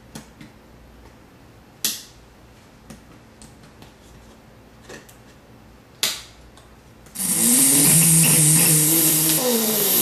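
Circuit-bent Sounds of Nature flashlight toy: a few sharp clicks, then about seven seconds in it starts playing a loud hiss with warbling tones that glide down and back up as its pitch is bent.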